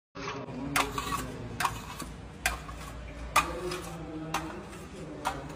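Steel trowel scraping across a stucco-marble plaster wall in short, even strokes about once a second, over a low steady hum.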